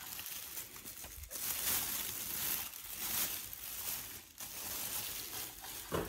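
Clear plastic bag crinkling and rustling on and off as it is handled around a wrapped figurine.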